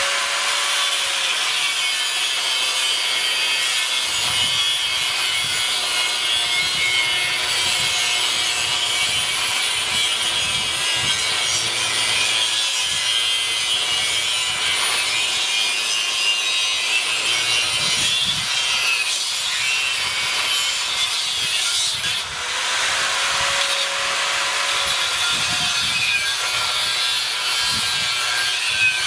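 Angle grinder with a thin cutting disc cutting through the steel shell of an AC compressor: a steady loud grinding with a motor whine that drops in pitch while the disc is under load. A little past two-thirds of the way through, the whine climbs for about three seconds as the disc eases off the metal, then drops again as it bites back in.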